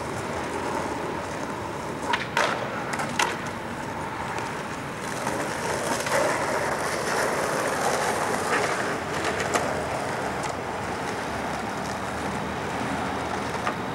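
Skateboard wheels rolling over street pavement, a steady rumble, with a few sharp clacks about two to three seconds in and again around nine to ten seconds.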